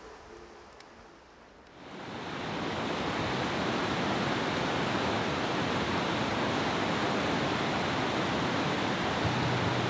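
Rapids of a fast mountain river, rushing steadily over boulders. The sound fades up about two seconds in and then holds level.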